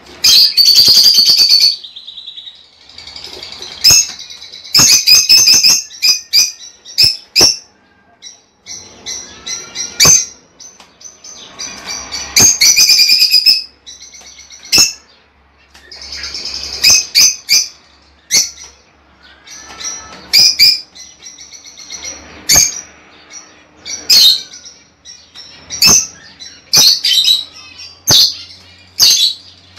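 Lovebirds calling: shrill chirps and squawks in bursts, with runs of rapid chatter early on and around the middle, then short sharp single calls every second or two towards the end.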